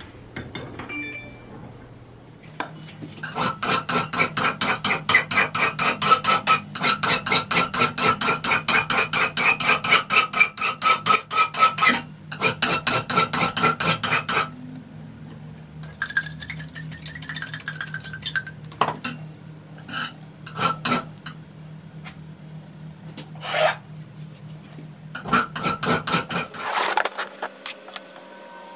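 A hand file is drawn in rapid, regular strokes across a steel knife blank cut from a lawnmower blade. The blank is clamped in a bench vise, and the steel rings with each stroke. The filing stops about halfway through, giving way to scattered scrapes and knocks, and a short final run of strokes comes near the end.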